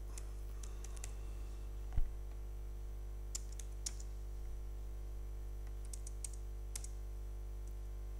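Computer keyboard typing: sparse, separate keystrokes entering a date range, with one low thump about two seconds in, over a steady electrical hum.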